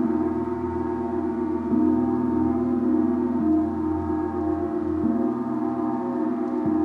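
Gong struck softly and repeatedly, about every second and a half, four times in all, its low ringing tone with many overtones sustained and swelling between strikes.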